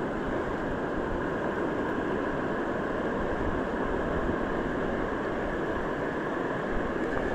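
Steady rushing of the Gunnison River: an even roar of flowing water with no change in level.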